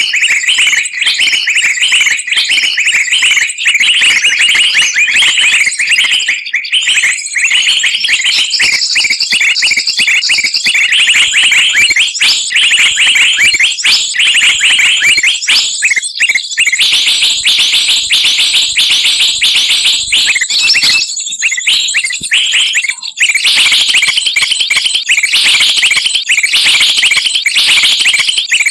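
A loud, dense chatter of many small songbirds calling at once, rapid high chirps and trills: a mixed bird-lure recording used to draw wild birds down to traps. The mix changes its character about two-thirds of the way through, with a short thinner patch.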